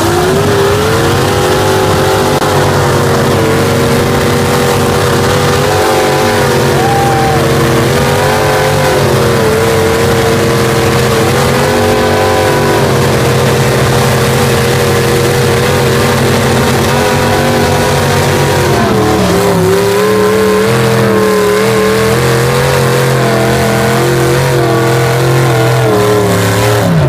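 Mud trucks' engines held at high revs under heavy load as they strain against each other in a tug-of-war pull. The engine pitch wavers and dips briefly now and then, and sags and wobbles a little about two-thirds of the way through.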